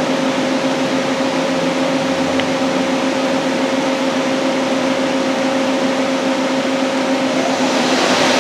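Daewoo Puma 240 CNC lathe spindle spinning its 3-jaw hydraulic chuck at about 2,000 rpm: a steady whine over an even hiss, with a faint rising tone near the end.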